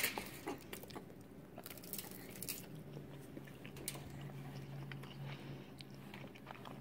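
A baby chewing a mouthful of egg: faint soft mouth sounds and small scattered clicks.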